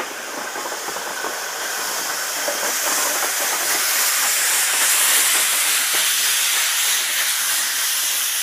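Steady hiss of steam from a departing steam tank locomotive, growing louder from about two seconds in. Light clicks of wheels on the rails fade out in the first couple of seconds.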